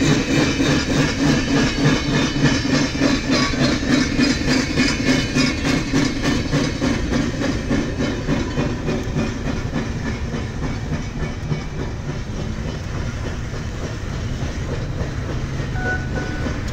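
Steel wheels of a slow train carrying the steam locomotive Nickel Plate Road Berkshire 757, hauled unpowered, clicking over rail joints in a steady rhythm over a low rumble, heard from inside a car driving alongside. The clicking grows fainter after about eight seconds as the caboose comes abreast.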